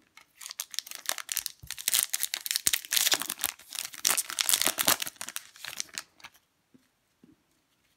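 Foil trading-card pack wrapper being crinkled and torn open by hand, a dense crackling for about six seconds that then stops.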